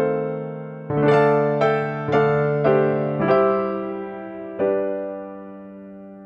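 Background piano music: a slow melody of single struck notes about half a second apart, each ringing and fading, with the last note left to die away near the end.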